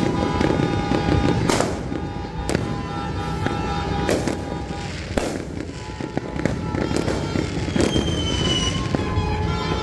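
Fireworks and firecrackers going off: about five sharp, separate bangs at irregular intervals, with smaller cracks between them and a short falling whistle about eight seconds in.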